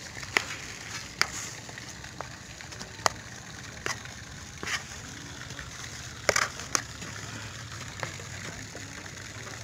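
Fishing-bait dough being squeezed and mixed by hand in a plastic basin, with a spoon scraping through it and knocking against the bowl about seven times, twice in quick succession about six and a half seconds in.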